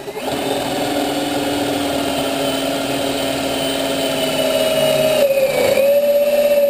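Cordless drill spinning a stepped pocket-hole bit through a Kreg pocket-hole jig into plywood, a steady motor whine. Its pitch sags briefly about five and a half seconds in, then holds steady again.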